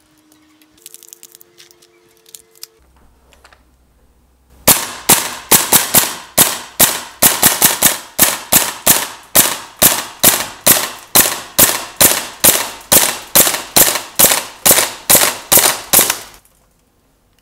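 VFC SR-25 gas blowback airsoft rifle firing a long string of rapid semi-automatic shots, about three a second, each a sharp crack of the bolt cycling. The string stops abruptly near the end as a full gas magazine is emptied in a gas-efficiency test.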